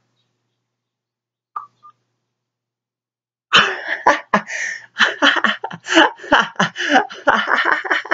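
Dead silence, then from about three and a half seconds in a man laughing in rapid, stifled bursts and sharp breaths.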